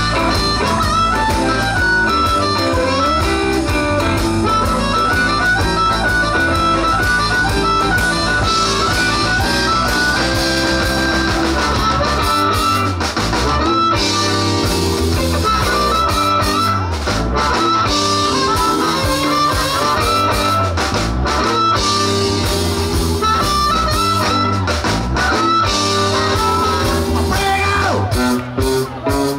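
Live blues band: harmonica played cupped against the vocal microphone, taking the lead over electric guitar, bass guitar and drums. The band makes a few quick stops near the end.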